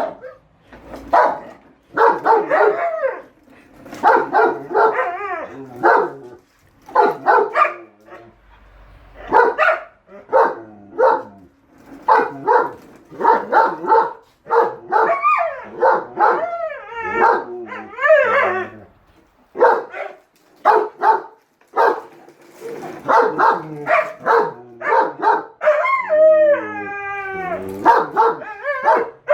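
A German shepherd barking in quick bursts, traded with a Siberian husky's howling, wavering 'talking' calls that bend up and down in pitch; the longest howls come near the end.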